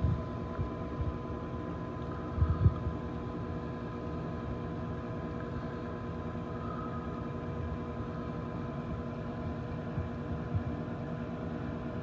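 Intertherm mobile home gas furnace running: its draft inducer motor gives a steady hum with a faint steady whine. A couple of low thumps come near the start and about two and a half seconds in.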